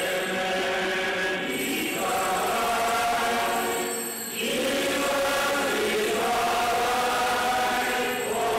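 A choir singing a slow, chant-like hymn in long held phrases, with brief breaks about two and four seconds in.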